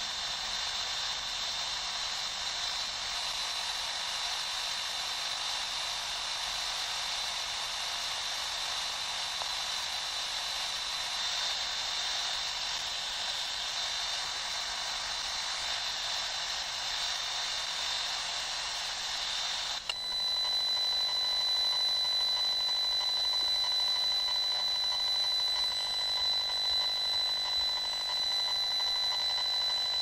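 Radio static hiss from a software-defined radio receiver (RTL2832U tuner running SDR Touch) demodulating AM on an empty airband channel. About two-thirds of the way through it changes abruptly, with a brief dip, to a louder steady high-pitched whine over the hiss as the receiver is retuned to the 860 MHz cellular band.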